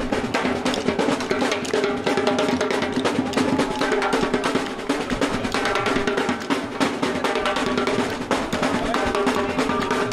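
Marching drum band playing in the street: many drums, snare and bass, beating a busy, fast rhythm over held pitched notes.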